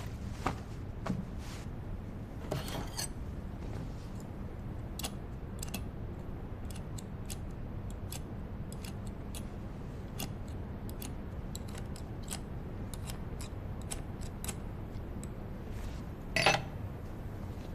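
Scissors snipping, a scatter of small irregular clicks over a low steady hum, with a louder snip and rustle near the end. It is the sound of stitches in cloth being cut.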